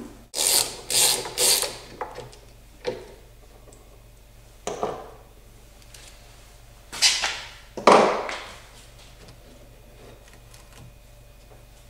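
Ratchet wrench clicking in short strokes as a brass bolt is worked loose. Three quick strokes come about half a second in, then scattered single strokes, with a louder pair about two-thirds of the way through.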